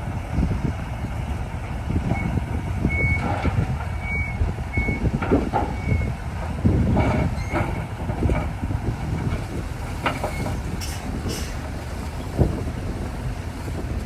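Heavy earthmoving machinery running with a steady rumble while a reversing alarm beeps about once a second for several seconds. A few sharp knocks come near the end.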